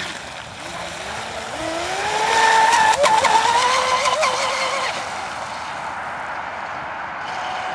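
Radio-controlled catamaran speedboat running at full speed, its motor giving a high whine whose pitch rises over the first two seconds, loudest around two to three seconds in, then fading as the boat runs away, with water hiss from the hull.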